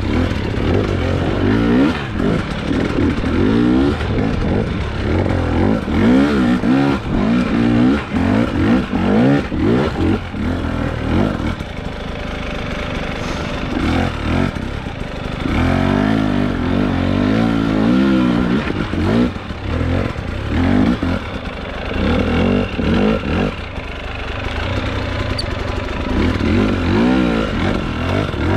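Husqvarna TX300 two-stroke enduro motorcycle engine revving in short, repeated throttle blips, its pitch rising and falling again and again under load on a steep rocky climb.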